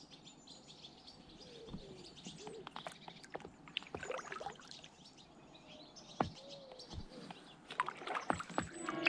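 Faint birdsong: scattered short chirps and calls from birds in the riverside trees and reeds. Near the end, kayak paddle strokes splashing in the water grow louder.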